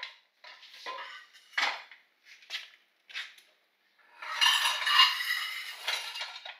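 Metal bars of a set of Collins wheel dollies clanking several times as they are handled, then about four seconds in a longer stretch of metal scraping and rattling as a bar is dragged out across a concrete floor.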